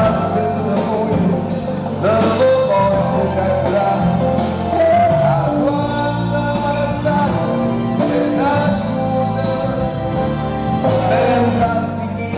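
A live band playing a song, with a male singer's voice over the music.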